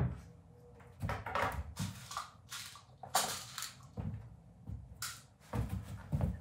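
A metal drawer slide being handled and fitted against a wooden cart frame: a sharp knock at the start, then a run of short scrapes and rattles.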